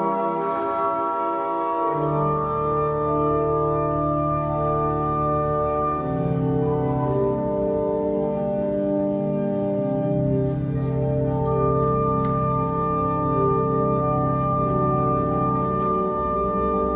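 Church pipe organ playing slow, sustained chords. Deep bass notes come in about two seconds in.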